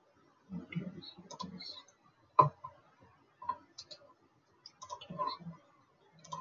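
Several computer mouse clicks at irregular intervals, the loudest a sharp click about two and a half seconds in.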